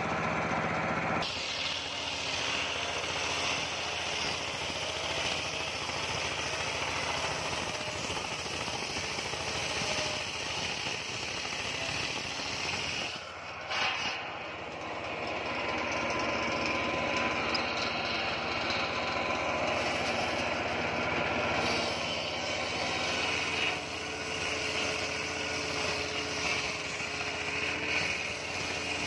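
Homemade table circular saw ripping lengthwise through a coconut palm log: a steady machine hum under continuous harsh cutting noise, with a brief lull about halfway through.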